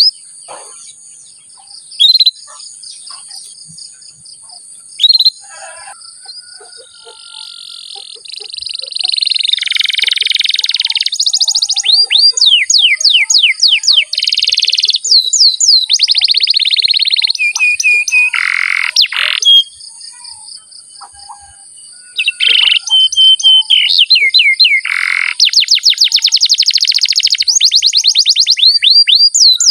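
Domestic canary singing. Quiet chirps and two sharp loud calls come in the first few seconds. From about eight seconds in it sings a loud, nearly continuous song of fast rolls and rapid repeated sweeping notes, pausing briefly around two-thirds of the way through, over a steady high hiss.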